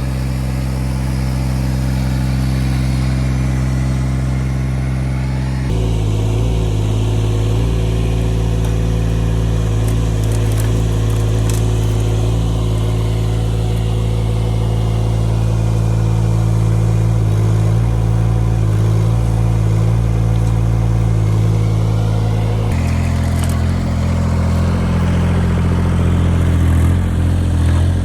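Mini excavator's three-cylinder Yanmar 3TNV74F diesel running steadily. Its engine speed changes in a step about six seconds in and again near the end.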